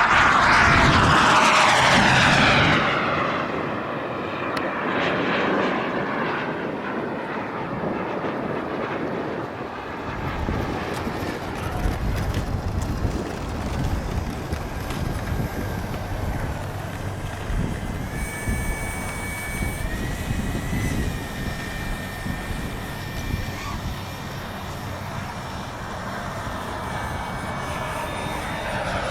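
Hummingbird RC jet's turbine engine whining as the model flies. It makes a loud pass at the start, its pitch falling steeply as it goes by, then continues as a fainter steady whine in the distance before closing in again at the end. Wind rumbles on the microphone throughout.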